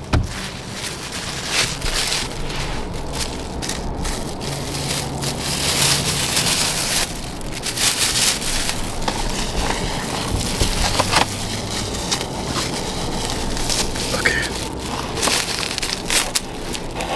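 Crunching and chewing of crispy fried chicken close to the microphone: a steady run of crackly bites and chews with many small sharp crunches.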